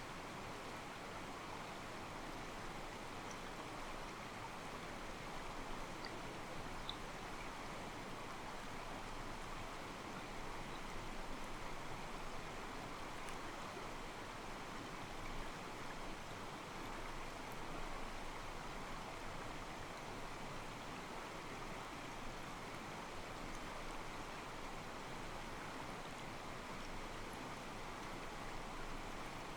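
Calm mountain stream flowing steadily, its water sloshing softly against rocks.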